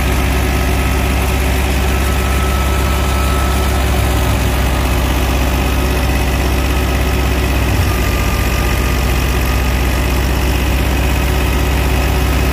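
Tractor-powered wheat thresher running at work, a loud steady drone with a deep low hum from the tractor engine and the thresher drum.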